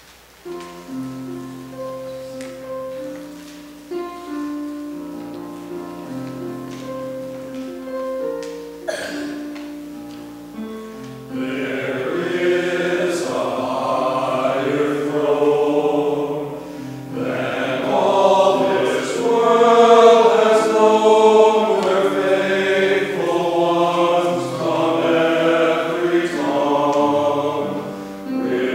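Piano introduction of held chords and a simple melody, then a men's choir comes in about eleven seconds in, singing a hymn together with the piano accompanying.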